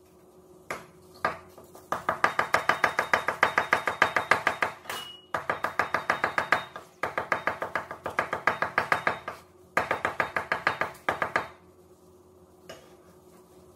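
Garlic being minced with a cleaver on a wooden cutting board: a few single knocks, then fast, even chopping at about seven strokes a second in several runs with short pauses, stopping near the end.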